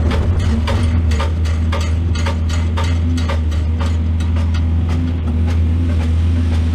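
Heavy diesel engine of an excavator running steadily with a deep drone, with many irregular knocks and clatters over it.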